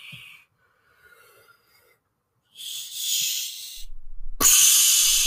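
Cartoon slapstick sound effects for a mallet hit: a hissing whoosh about two and a half seconds in, then a louder crash-like hit that starts sharply near the end.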